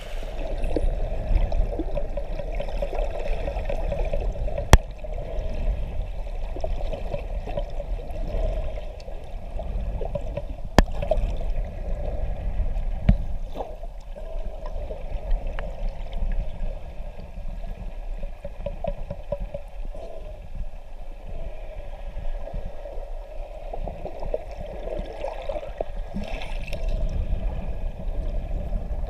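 Muffled underwater water noise through a camera's waterproof housing: a steady rushing and gurgling, with two sharp clicks about five seconds in and again about six seconds later.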